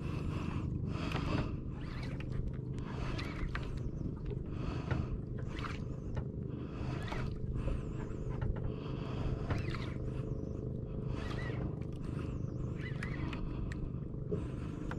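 Angler cranking a conventional jigging reel against a strong hooked fish: a rasping sound repeating about once a second, over a low steady hum.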